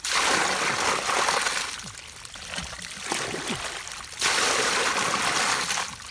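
Bucketfuls of muddy water poured into a plastic crate, splashing and draining through its slotted sides as the mud is washed off fish caught in the crate. There are two pours: one at the start, and another starting about four seconds in.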